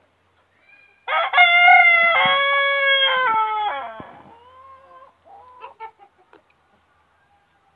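A rooster crowing once: one long, loud call of about three seconds, starting about a second in and trailing off at the end. A few short clucks follow.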